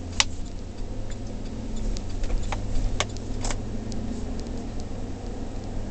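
Steady low road and engine hum inside the cab of a GMC Denali on the move, with a few sharp clicks: one just after the start and three about half a second apart around the middle.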